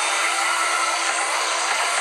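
Pachislot machine sound effect: a dense, steady rushing noise with a held low tone under it that stops just before the end.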